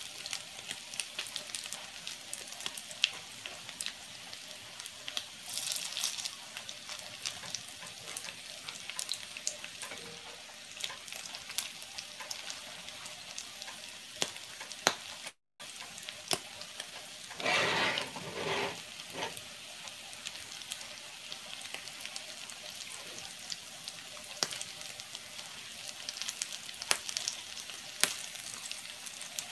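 Salmon patties frying in hot oil in a skillet: a steady sizzle full of small crackles and spits. A metal spatula works the patties in the pan, with a louder burst about two-thirds of the way through.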